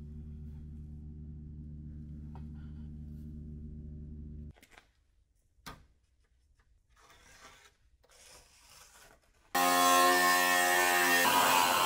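A steady hum, then a short quiet stretch of metal panels being handled, with a click and some rubbing. About nine and a half seconds in, a Makita angle grinder starts loud, its cutting disc slicing through sheet steel.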